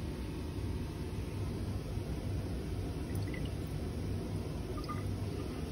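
A plastic wash bottle squirting water into a glass graduated cylinder, faint over a steady low background hum.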